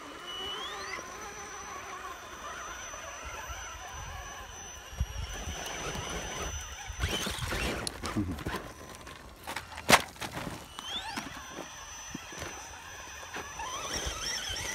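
Electric RC rock crawlers climbing loose dirt and rock. A high motor whine rises in pitch and then holds steady, and tyres scrabble and throw gravel. One sharp knock comes about ten seconds in.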